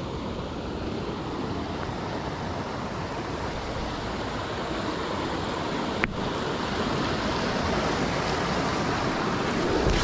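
River rapids rushing steadily over and between boulders, with a low rumble of wind on the microphone. A single short click about six seconds in.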